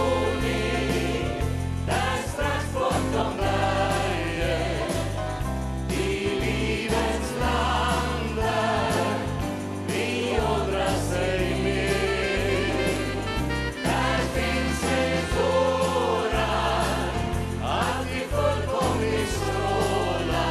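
A choir and lead singers singing a song with a live band. Accordion, acoustic guitar and drums play over a steady bass line.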